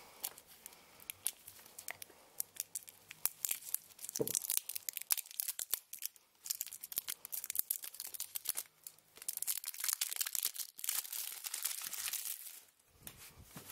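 Cellophane wrap on a playing-card box being slit with a knife and peeled off, crackling and crinkling in many quick, irregular bits, busiest a little past the middle.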